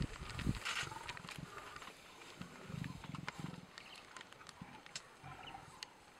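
Male lion growling low while carrying a warthog carcass in its jaws, a few deep rumbles in the middle.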